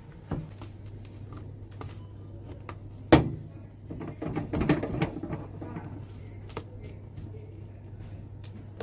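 Old leather sole being pried and torn off a shoe with cobbler's pincers: a sharp knock about three seconds in, then a run of cracks and tearing as the sole breaks away, with a few lighter clicks of the pincers. A steady low hum lies underneath.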